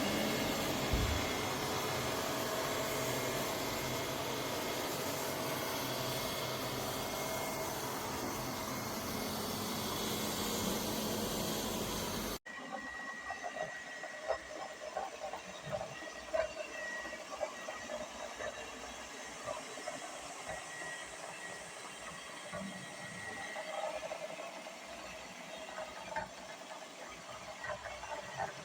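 Lefant M210 Pro robot vacuum cleaner running with a steady whooshing whir. About twelve seconds in, the sound cuts off abruptly to a quieter background with scattered small clicks and knocks and a faint steady high tone.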